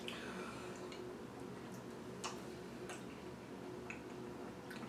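A few faint, sparse clicks of a metal fork knocking and scraping against the inside of a plastic Knorr Snack Pot cup as the food is stirred, over a faint steady hum.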